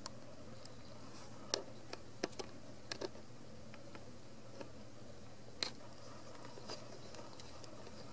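Newborn Ragdoll kittens crawling over a cloth pad: soft scattered clicks and scratches of claws and paws, a handful between about one and a half and three seconds in and another near the middle, over a steady low hum.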